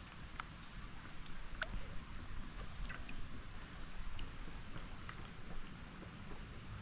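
Creek water running in a low, even wash, with a thin high steady tone that breaks off and comes back, and a few faint small clicks.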